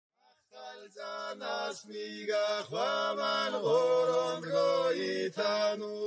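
Chanted vocal music: voices singing a slow, bending melody over a steady held low note, starting about half a second in after a moment of silence.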